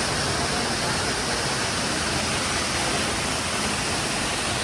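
A steady, even rushing noise with no change in level.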